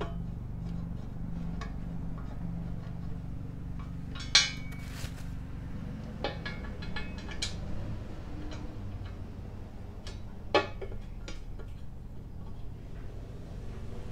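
Scattered metallic clinks and taps of bolts and a steel bracket being handled and fitted on a powder-coated steel bumper end cap. The loudest is a sharp clink with a brief ring about four seconds in, and another comes about ten and a half seconds in, over a steady low hum.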